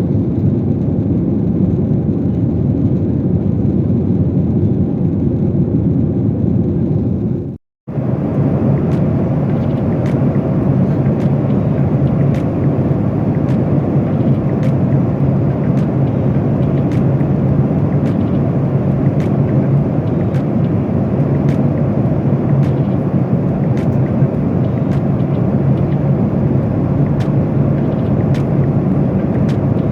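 Steady cabin noise inside a Boeing 737-800 airliner: engine and airflow noise with a constant low hum. A brief cut to silence comes about eight seconds in, and faint regular clicks follow it.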